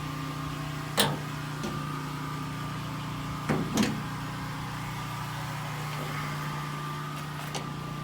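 Folding metal tailgate ladder being swung out and set in place: a sharp knock about a second in and two more close together around three and a half seconds in, over a steady low hum.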